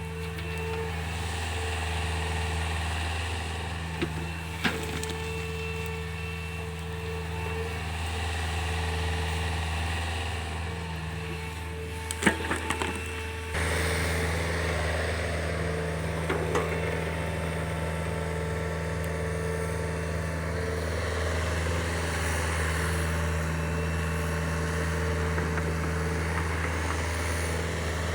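Mini excavator's diesel engine running steadily as it clears scrub, with a few sharp knocks about 4 and 12 seconds in. About halfway through, the sound becomes louder and rougher.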